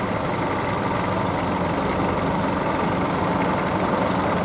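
Vintage Fordson tractor's engine running steadily at low revs as the tractor drives slowly past.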